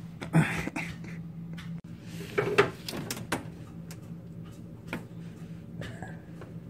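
Knocks, scrapes and rattles of a hand working along the pressed-board back panel of an old console stereo cabinet, loudest about two and a half seconds in.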